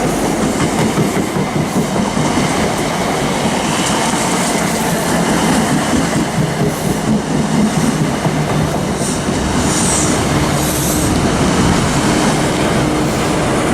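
A train running through the station close by: a loud steady rumble of wheels on the rails, with the clickety-clack of wheels over rail joints.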